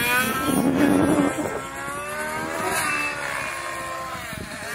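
Radio-controlled model helicopter flying, its small combustion engine and rotor making a steady whine. The whine is loudest about a second in, then its pitch rises and falls as the helicopter manoeuvres, sliding lower around three to four seconds.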